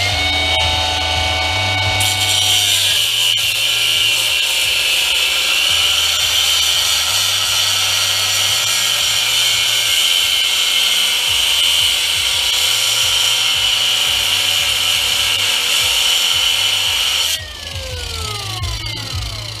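A high-speed power tool with a cutoff wheel whines up to speed, cuts into metal with a loud, steady, high-pitched grinding for about fifteen seconds, then is released and winds down with a falling whine near the end.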